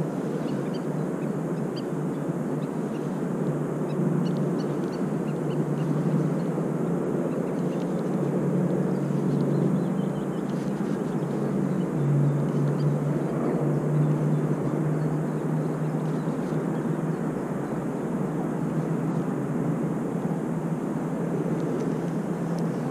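Steady, distant engine drone over a constant outdoor noise. Its hum drops a little in pitch about halfway through and fades out near the end.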